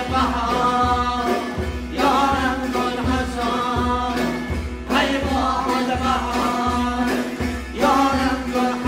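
Pamiri folk music from Tajikistan: a voice sings melodic phrases, each starting about every three seconds, over a steady instrumental drone and a repeating low drum beat.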